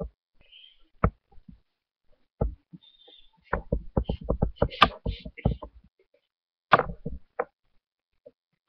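Computer keyboard keys being typed: a few scattered clicks at first, then a quick run of keystrokes in the middle, and a few more near the end.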